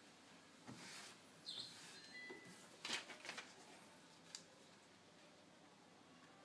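Near silence with faint handling noises: soft rustling of transfer paper and fabric and a few light taps as printed transfer pieces are placed on a headband, the loudest about three seconds in.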